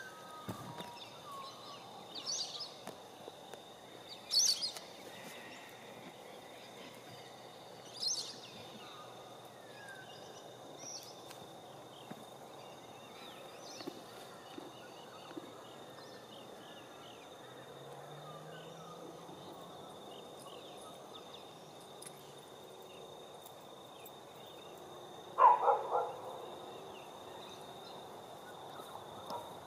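Rural outdoor ambience: a steady high insect drone with a few short bird calls in the first several seconds. Near the end comes a brief cluster of loud animal calls, the loudest sound here.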